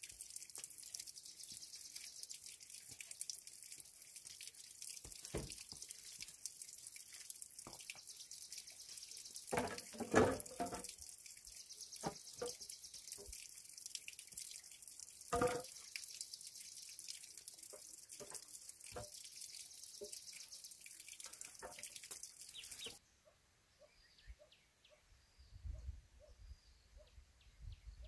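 Hollow bamboo tubes knocking and clacking as they are handled and set down, in scattered hits with the loudest about ten seconds in and again about fifteen seconds in, over a steady high hiss. Near the end the hiss stops and faint bird chirps remain.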